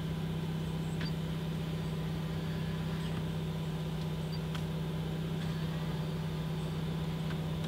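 A steady low hum with a few faint clicks; the hum stops abruptly near the end.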